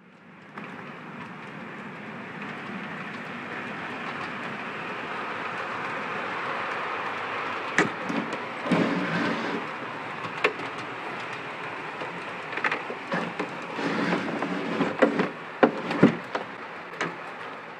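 Model train running along layout track: a steady rolling hum of the wheels and motor, with sharp clicks from the wheels crossing rail joints that start about halfway through and come thickest near the end.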